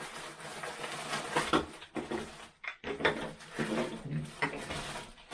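Rummaging in packaging: continuous rustling with light clattering knocks as the vacuum's plastic caster wheels are taken out.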